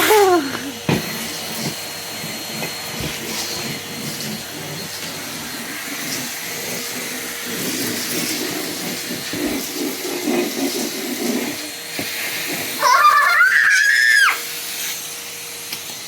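Vacuum cleaner running steadily with a hum, and occasional sharp clicks as beads are sucked up. About thirteen seconds in, a loud high-pitched rising squeal lasts just over a second.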